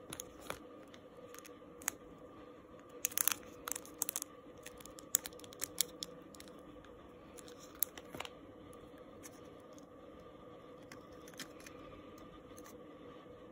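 Clear plastic packaging handled and torn open by hand, crinkling in scattered short crackles and clicks, busiest a few seconds in. A faint steady hum runs underneath.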